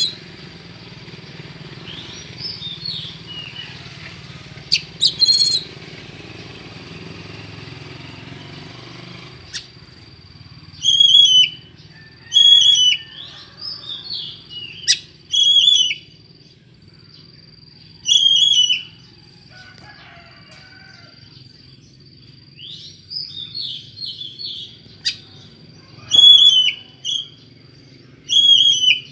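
Oriental magpie-robin (kacer) giving unusual, strange-sounding calls: short loud phrases about a second long, each bending up then down, repeated every one to several seconds, with softer chirps between. A thin steady high tone runs under them from about ten seconds in.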